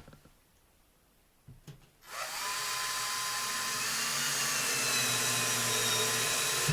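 Cordless drill-driver driving a self-tapping screw into the plasterboard frame: after a quiet start, the motor starts about two seconds in, runs with a steady whirr that rises slightly, and stops abruptly at the end.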